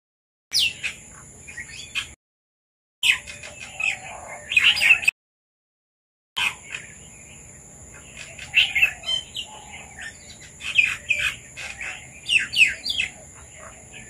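Red-vented bulbuls calling in quick clusters of short, sharp chirps over a steady high-pitched drone. The sound cuts out to dead silence three times in the first half.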